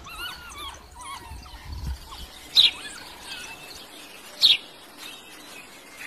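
African wild dogs twittering: scattered high, bird-like chirps, with two short, louder squeaks about two and a half and four and a half seconds in.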